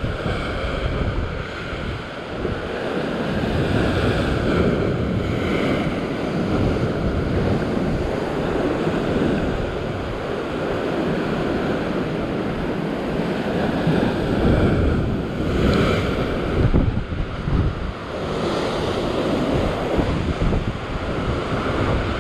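Rough sea surf washing and breaking against a rocky shoreline, a continuous rush that swells louder a few times as bigger waves come in, with wind buffeting the microphone.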